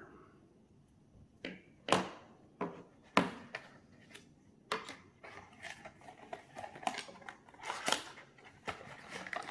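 A few sharp knocks as the small portable SSDs are set down on a wooden tabletop, then scraping and rustling of a small cardboard box and its cardboard insert being handled and pulled out, with scattered clicks.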